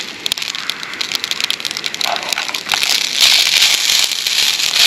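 Savoury rice cooking in a pan on a gas camping stove, sizzling and crackling, with a dense run of small clicks. It grows louder about three seconds in, as a fork stirs the rice.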